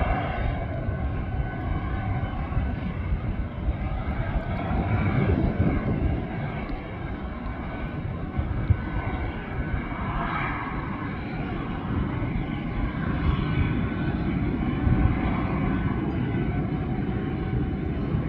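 Steady aircraft engine noise: a low rumble with a faint high whine.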